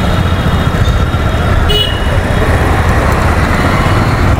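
A motorcycle riding through busy street traffic: steady low engine and road rumble, with a vehicle horn fading out at the start and one short horn toot nearly two seconds in.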